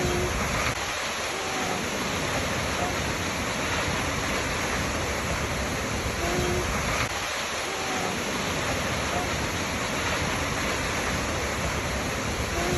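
Waterfall rushing: a steady, even roar of falling water. A few short faint tones come through the rush, recurring in the same pattern about every six and a half seconds, as in a looped recording.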